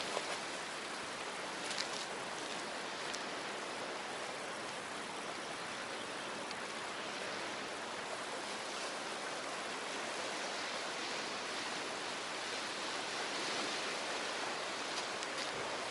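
Steady hiss and wash of sea waves at the shore, an even rushing noise with no distinct breaks.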